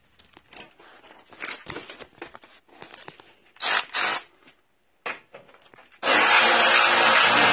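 Handling noises, irregular rubbing and clicks. About six seconds in, a Milwaukee M12 FUEL brushless 3/8-inch cordless ratchet starts running and keeps going steadily.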